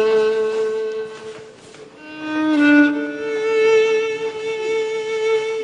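Background score: a violin playing slow, long held notes, fading briefly about two seconds in and then swelling again.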